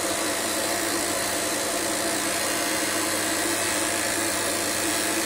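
Small electric dog-grooming clippers running with a steady buzz while trimming the hair on a dog's foot, over a steady hiss.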